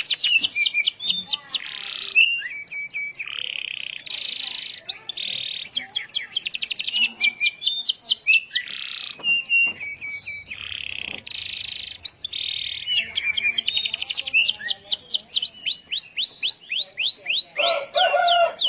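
Domestic canary singing continuously: fast trills of rapidly repeated downward-sweeping notes alternating with harsh, buzzy rolls, high-pitched throughout.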